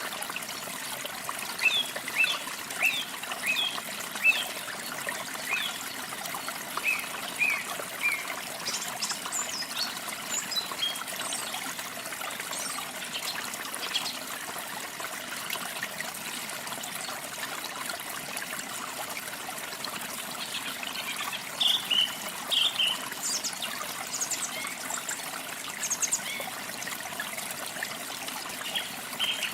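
Small birds chirping in short quick series over the steady trickle of running water; one run of chirps comes in the first few seconds, with higher notes and another cluster later.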